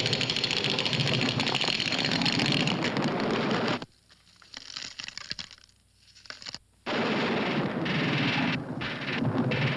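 Cartoon earthquake sound effect: a loud, fast, rattling rumble that cuts off about four seconds in, with a few quieter scattered rattles after it. The rumble starts again about seven seconds in, broken by brief gaps near the end.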